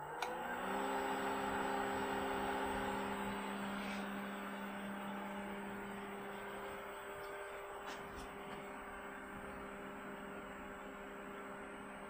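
Black + Decker 1.5 hp variable-speed pool pump speeding up to 2,000 RPM: its motor hum rises in pitch and levels off within the first second, then it runs steadily with a hum and a hiss, slowly growing fainter.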